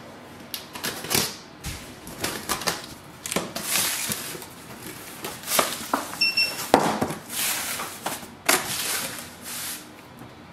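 Cardboard carton being opened by hand: flaps pulled apart with repeated knocks, clicks and short scraping rustles of cardboard, and a brief high squeak about six seconds in.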